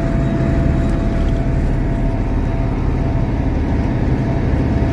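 John Deere 8650 tractor's diesel engine running steadily under way, heard from inside the cab, with a thin steady whine over the low drone.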